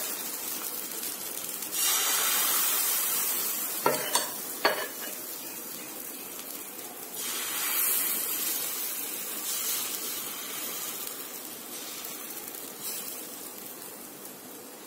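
Ragi dosa batter sizzling on a hot oiled pan as small rounds are ladled on. The hiss swells several times as fresh batter meets the pan, with two sharp clinks about four seconds in.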